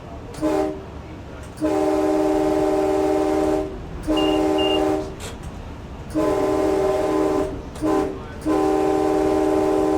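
Locomotive's Nathan K5LA air horn sounding a chord of several steady tones in a series of blasts: a short toot near the start, then two long blasts, another long one, a short one, and a long blast held to the end, over the low rumble of the train.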